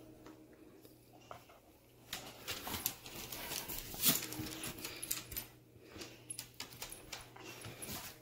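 Two dogs playing tug-of-war over a stuffed toy: irregular scuffling and clicks, with a louder burst about four seconds in.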